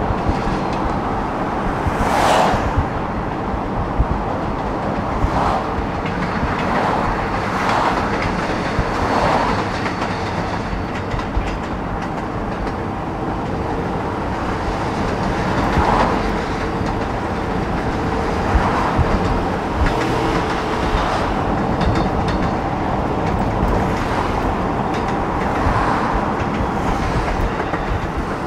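Steady rushing road and wind noise of a moving car, with a brief whoosh now and then.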